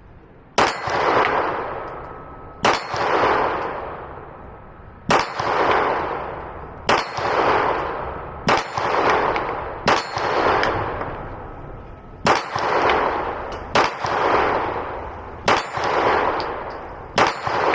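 Ten slow-fire shots from a Glock Gen 5 9mm pistol, one every one and a half to two and a half seconds, each a sharp crack followed by a long echo that fades away before the next shot.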